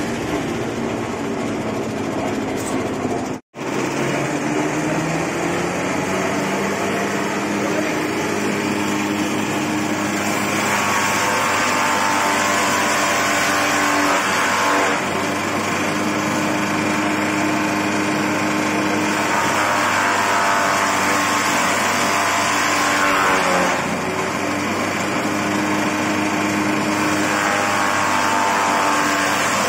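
Electric-motor-driven palm frond shredder running with a steady mechanical hum. Several times, longer stretches of harsher chopping noise rise over the hum as fronds are fed in and cut. The sound breaks off briefly about three and a half seconds in.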